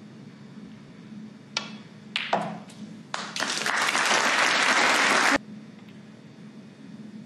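Arena audience applauding: a few scattered claps build into about two seconds of full applause, which cuts off suddenly.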